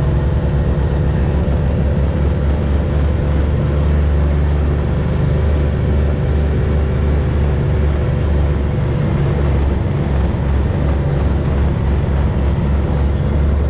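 All-terrain vehicle engine running steadily while the ATV is driven along a rough woods road, a loud continuous low rumble.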